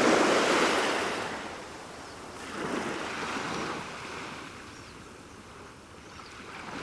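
Ocean surf breaking on a beach: a wave washes in with a hiss at the start, the loudest moment, and fades over about two seconds, a smaller wave washes in about three seconds in, and another begins to build near the end.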